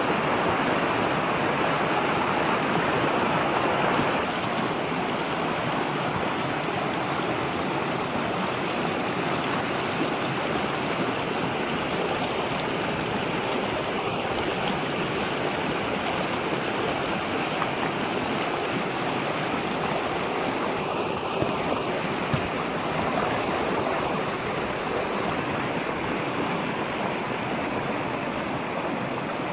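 Shallow rocky stream running steadily over stones, a constant rush of water, a little louder for the first four seconds.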